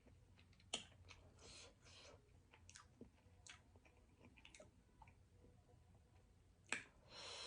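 Faint chewing of seafood with scattered wet mouth clicks, and a short, louder rush of noise near the end.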